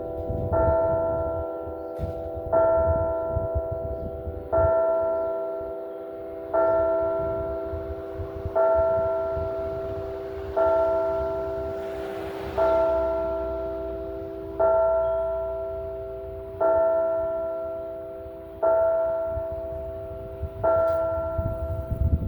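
A single church bell tolling the hour at an even one stroke every two seconds, each stroke ringing out and fading before the next. Eleven strokes fall here, the rest of the twelve that toll noon.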